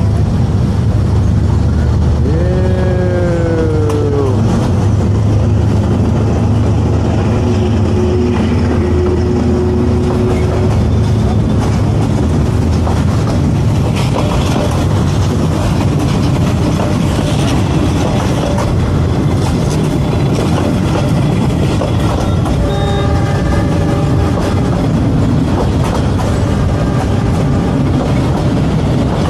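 Diesel-hauled passenger train passing close by at a level crossing. There is a heavy engine rumble as the locomotive comes through, with a horn blast about two to four seconds in whose pitch rises and then falls away. After that comes the steady rolling noise of the coaches' wheels on the rails, and further short horn notes sound near the end.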